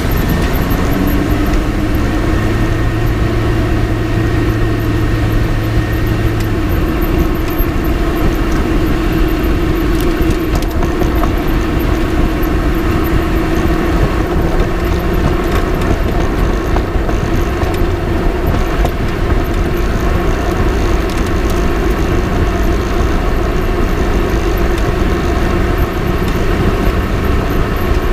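Road and tyre noise with engine drone from a Lotus Elise on the move, heard through a camera fixed to its front left suspension; a steady tone climbs in pitch in the first second or so and then holds. A few faint ticks about ten seconds in.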